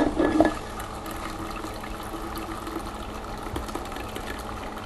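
Thick blended piña colada running from a blender jug's dispensing tap into a glass, a steady filling pour, after a brief clatter of the glass at the start.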